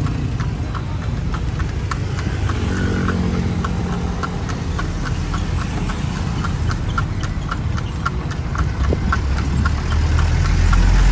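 Horse's hooves clip-clopping steadily, about four beats a second, as it pulls a kalesa (horse-drawn carriage), over a low rumble that swells near the end.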